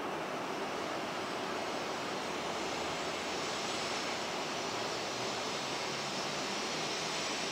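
E5 series Shinkansen pulling out of the station: a steady rush of traction motor and wheel noise, swelling slightly, with faint high tones above it.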